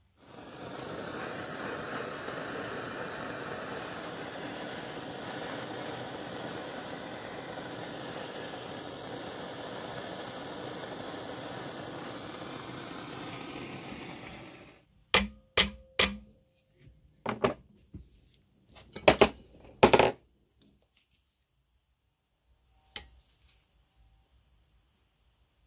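Handheld gas torch burning with a steady hiss and a thin high whistle, then shutting off sharply about 15 seconds in. After it come half a dozen loud, sharp metal clinks and knocks over the next five seconds.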